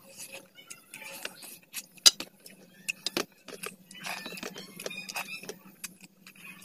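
A person eating rice and curry by hand: wet chewing and lip-smacking mixed with fingers scraping food across a steel plate, with irregular sharp clicks, the loudest about two seconds in.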